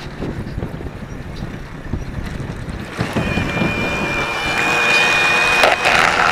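Wind rumbling on the microphone, then from about three seconds in a steady high electric motor whine that grows louder, from the e-bike's motor pulling power.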